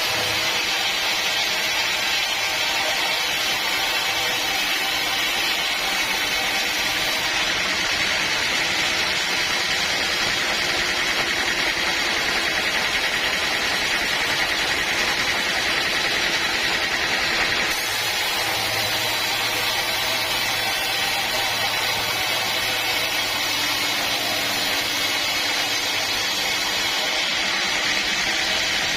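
Sawmill machinery running steadily with a loud, even rushing noise, as of a band sawmill sawing teak; a low engine hum comes in about two-thirds of the way through.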